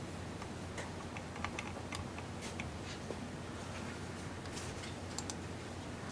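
Faint, irregular clicking and ticking of a computer mouse, over a steady low hum.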